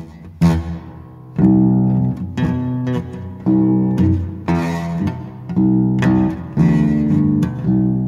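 Guitar strumming chords about once a second, each struck sharply and left to ring before the next; the guitar is described as horribly tuned.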